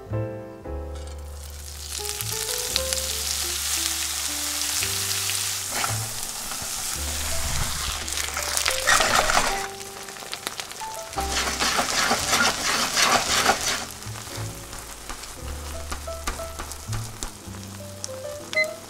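Seafood-and-mochi pancake (chijimi) frying on a layer of shredded cheese in an oiled nonstick frying pan, sizzling in surges that are loudest through the middle and die down near the end, as the cheese crisps into a coating. Soft background music with piano-like notes plays throughout.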